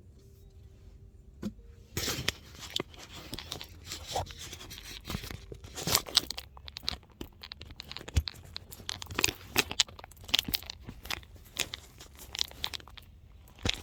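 Irregular rustling, crinkling and clicking handling noises, starting about two seconds in after a quiet opening.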